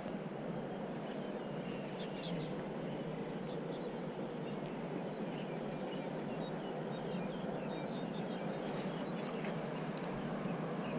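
Steady rush of flowing river water, with faint scattered bird chirps over it.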